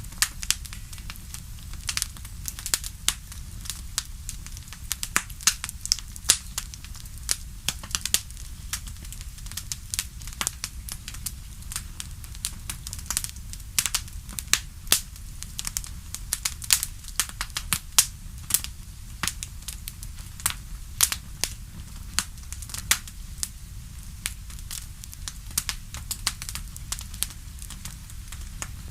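Wood fire in a fireplace crackling: irregular sharp pops and snaps, sometimes several a second, over a steady low rumble.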